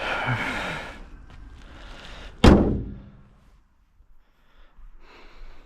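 A single heavy slam of a car panel shutting, about two and a half seconds in, after a second or so of handling noise.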